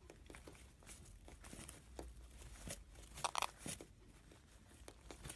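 Crinkling and rustling, like something papery being handled or torn, with scattered light clicks and taps; loudest a little past the middle.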